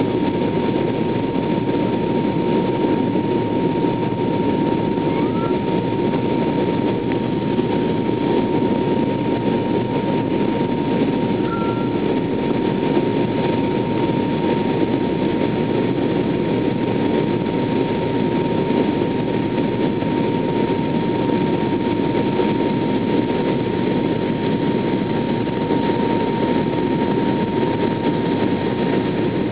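Airliner cabin noise during the descent to land: a steady roar of engines and rushing air, with a thin steady whine running through it.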